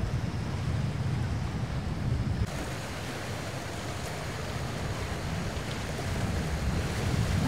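Wind on the microphone: a steady low rumble with a hiss above it, with no distinct events. The sound changes abruptly about two and a half seconds in, as at a cut between shots.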